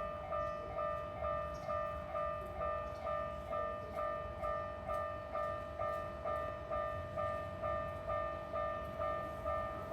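Japanese railroad crossing warning bell ringing, an even two-tone ding repeating about two and a half times a second.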